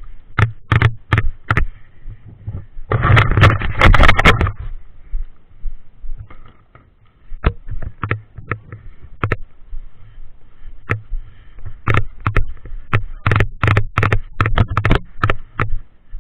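A run of sharp clicks and knocks at irregular spacing, with a dense flurry about three seconds in lasting over a second, a lull, then more clicks coming a few times a second toward the end.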